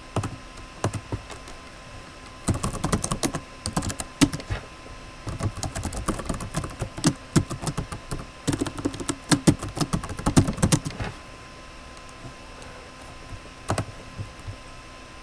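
Typing on a computer keyboard: quick runs of keystrokes for about eight seconds, with a few single clicks before and after.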